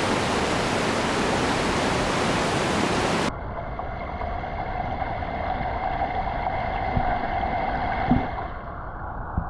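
Rushing mountain river, a steady full hiss of water. About three seconds in it cuts off abruptly to a quieter, duller rush of water, with a couple of faint knocks near the end.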